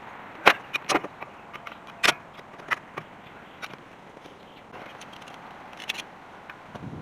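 Hand tools and metal brake parts clinking: a string of sharp clicks and clanks, the loudest about half a second in and again about two seconds in.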